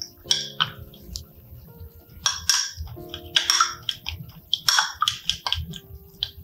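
A spoon scraping and clinking against a small glass, stirring cornflour and cold water into a smooth paste, in irregular strokes with a few longer scrapes.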